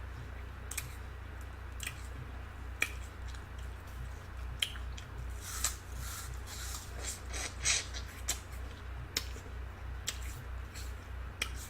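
Close-up eating sounds of fresh fruit: scattered sharp crisp clicks and short wet chewing bursts, one louder burst about two-thirds of the way through, over a steady low hum.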